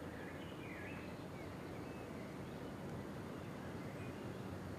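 Outdoor background noise: a faint steady low hum and hiss, with a few faint bird chirps near the start.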